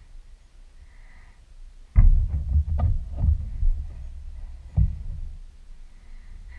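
A hard plastic pet hideout handled and shifted across carpet: a burst of low thumps and clicks starting about two seconds in, then a single sharp knock near five seconds.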